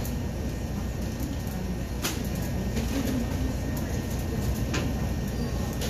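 Steady low rumble of a bakery kitchen, with a couple of light knocks about two seconds and nearly five seconds in.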